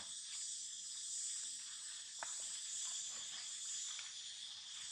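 Steady high-pitched insect chorus, with a couple of faint clicks about two and four seconds in.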